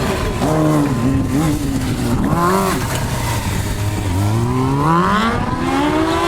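Stunt sport-motorcycle engine revving up and down under throttle, with a long climb in revs near the end.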